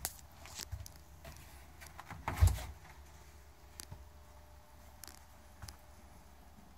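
Dometic RV refrigerator door being pulled open: a dull thump about two and a half seconds in, with a few light clicks of handling around it.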